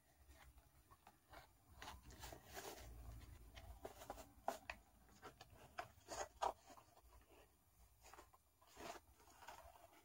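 Faint, scattered crinkling, rustling and clicking of a cardboard toy package being pried and pulled open by hand, stiff and hard to get apart.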